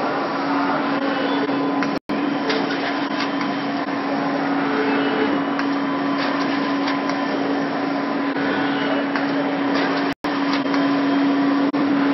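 Konica Minolta Nassenger PRO1000 industrial textile inkjet printer running in production, a steady mechanical whir with a constant low hum and faint ticking as printed fabric feeds off its belt. The sound cuts out completely for an instant twice, about two seconds in and about ten seconds in.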